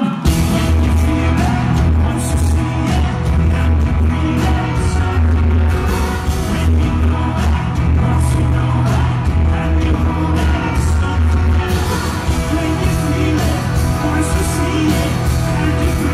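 Live pop-rock band playing loud, the full band with drums and heavy bass crashing in just after the start, recorded from the crowd.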